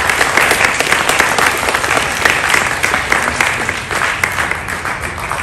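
Audience applauding: many hands clapping in a dense patter, easing off a little toward the end.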